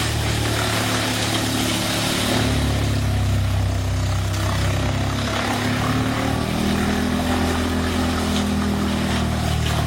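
Wood chipper's engine running steadily under load, its low drone under a constant rushing noise, the note shifting slightly about two-thirds of the way through.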